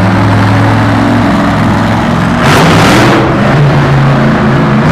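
Cyclops monster truck's engine running very loud, with a surge of revving about two and a half seconds in.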